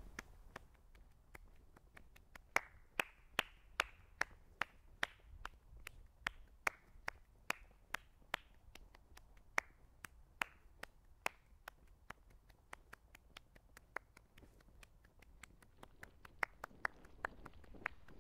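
Quiet, sharp dry clicks in an even rhythm, about two to three a second, some with a brief high ping. They are loudest from about two to eleven seconds in, fade for a few seconds, then pick up again near the end.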